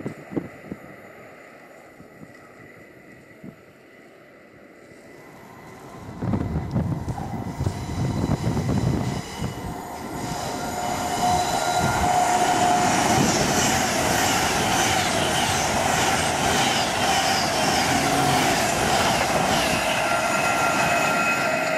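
A freight train's wagons roll away on the rails, fading, with a few clicks near the start. About six seconds in, a much louder train sound builds and holds: a Class 390 Pendolino electric train approaching, with wheels rumbling on the rails and steady whining tones over them.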